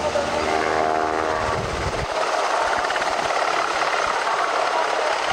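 UH-60J Black Hawk rescue helicopter flying by: a pitched, steady whine over the rotor noise for about the first two seconds, then a steady rushing noise with little low rumble.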